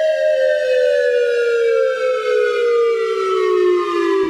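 Synthesized electronic warning siren in imitation of an ATI siren, with heavy echo added. A chord of tones slides steadily down in pitch as the siren winds down.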